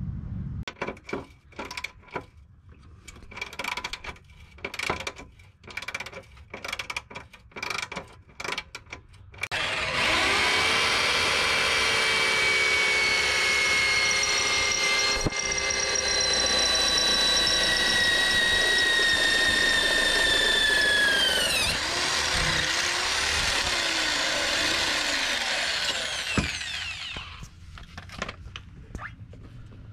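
A series of short clicks and knocks, then a power drill running hard under load for about twelve seconds, its whine sagging slowly in pitch before it winds down.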